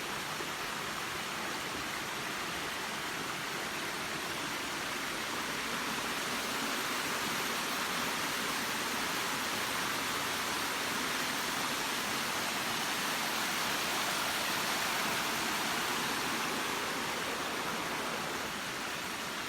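Waterfall: the steady rush of falling water, an even hiss that swells slightly toward the middle and eases near the end.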